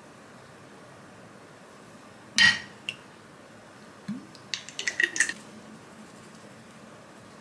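Glass sweet chili sauce bottle and small ceramic dipping dish: one sharp, ringing clink of glass on ceramic about two and a half seconds in, then a quick run of small clicks and clinks around the middle as the cap is put back on the bottle.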